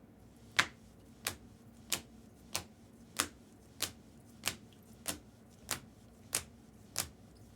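A series of sharp, evenly spaced clicks, about one every two-thirds of a second, eleven in all.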